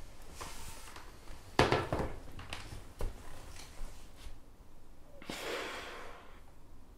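A man shifting and handling something in his lap: clothing rustles and small clicks, with a sharp knock about a second and a half in and a long breathy rustle around five seconds in.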